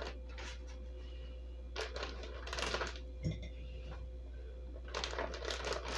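Plastic zipper freezer bags crinkling in short bursts as they are held open and handfuls of sliced onion are dropped in, with a soft knock a little past the middle, over a steady low hum.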